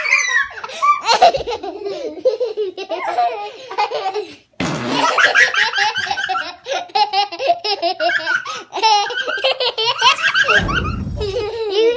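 Young children laughing hard and giggling. Near the end a whoopie cushion lets out a short, low, raspy blast of about a second.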